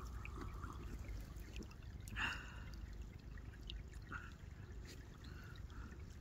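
Faint trickle of a small, partly frozen stream while a man drinks cold stream water from a plastic bottle, with one short, sharp breath about two seconds in.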